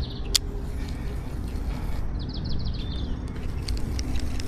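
Low, steady outdoor rumble with a single sharp click shortly after the start, and a small bird singing one short phrase of rapid repeated notes ending in a curved whistle about two and a half seconds in.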